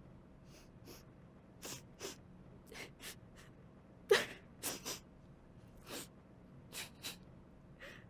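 A woman crying: about a dozen irregular sniffs and short sobbing breaths. The loudest is a sob with a little voice in it just past four seconds in.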